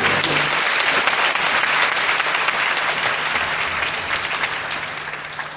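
Theatre audience applauding, just after the orchestra's final chord cuts off at the start; the applause fades away toward the end.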